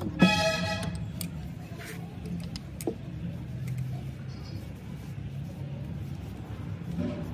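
A sharp metallic clink about a fifth of a second in, ringing briefly, as the 1KZ-TE engine's pistons and connecting rods are handled and knocked together. A few faint knocks follow over a steady low hum.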